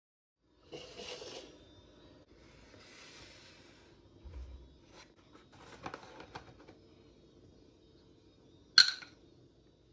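Hands handling things on a kitchen counter: a short rustle and soft scrapes, a dull thud and a few light clicks, then one sharp click or knock near the end, the loudest sound.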